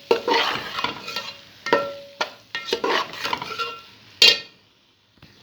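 A metal spoon stirring and scraping through a frying onion masala in a pot, with ringing clinks as it knocks against the pot, the loudest about four seconds in. Light sizzling goes on underneath.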